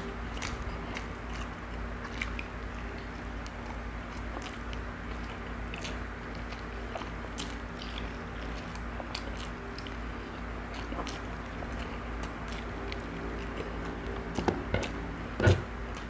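Close-up chewing and biting as a man eats chicken-pork adobo by hand, gnawing meat off the bone, with scattered small wet clicks over a steady low hum. A couple of louder knocks come near the end.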